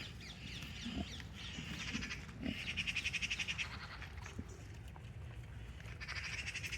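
Birds calling in fast, rattling runs of chatter, two runs about a second long, a third of the way in and again near the end, over a low steady rumble.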